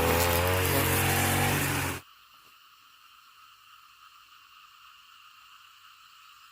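A motor engine running loudly, cut off abruptly about two seconds in; after that only a faint steady high hum of background noise remains.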